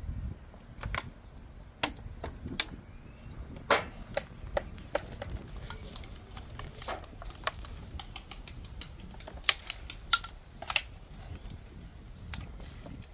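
Irregular light metallic clicks and clinks of engine parts, pistons, connecting rods and small metal pieces, being handled and knocked together, with one short ringing clink about ten seconds in.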